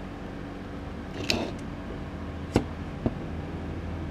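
Hands handling test leads and a clamp meter on a workbench: a short rustling scrape, then two sharp plastic clicks a half-second apart, over a steady low hum of running equipment.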